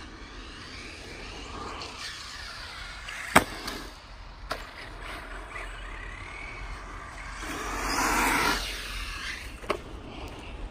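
Electric RC car motor whining, its pitch rising and falling as the car speeds up and slows. A sharp knock comes about three and a half seconds in, and a louder rush of noise comes near the end.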